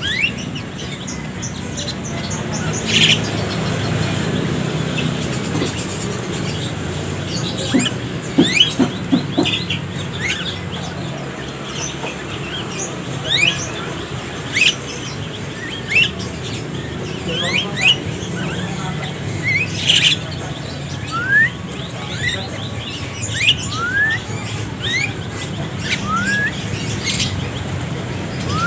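A group of caged Javan mynas calling: short rising chirps come every second or so, with a few louder, sharper calls, over a steady low hum.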